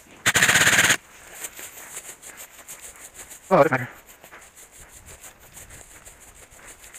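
Dry grass and brush rustling and scraping against a helmet-mounted camera as the player pushes through the field. A loud burst of noise comes about half a second in, lasting under a second, and a short cry from the player comes about three and a half seconds in.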